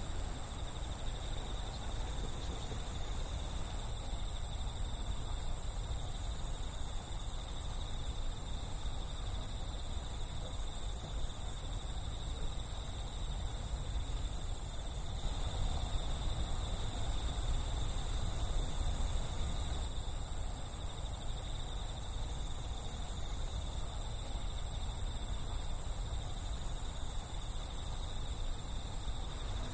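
Steady, unbroken high insect trilling in the night, over a low rumble.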